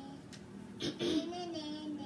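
A child's voice making a drawn-out, slightly wavering wordless sound, starting about a second in, just after a soft knock.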